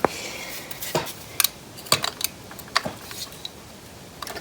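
Scattered metallic clicks and clinks of a crimped wire terminal and small hardware being fitted onto a lawnmower battery terminal.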